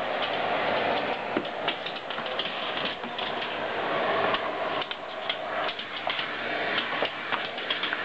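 Household vacuum cleaner running steadily, with many short, sharp clicks and taps over it from a Labrador's claws on the wooden floor as it paws and nips at the vacuum.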